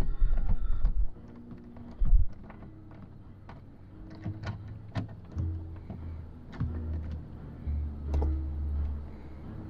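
Ratchet wrench with a 7mm socket on an extension backing out a long door-panel screw: scattered sharp clicks, with a couple of low thumps in the first two seconds.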